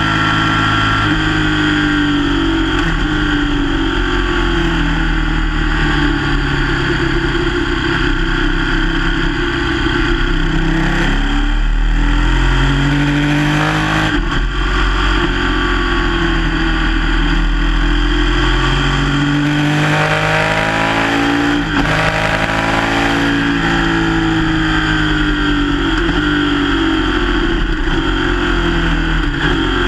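Sport motorcycle engine heard from the rider's seat at speed, its pitch rising and falling as the rider accelerates, shifts and slows for corners, with a run of quick pitch changes about twenty seconds in. Steady wind rush on the microphone throughout.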